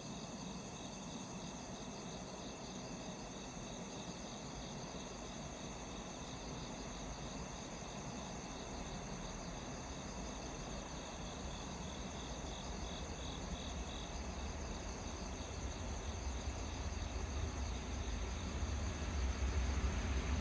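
Steady night chorus of crickets and other insects chirring. In the second half a low rumble grows louder as a freight train hauled by an EH500 electric locomotive approaches the station.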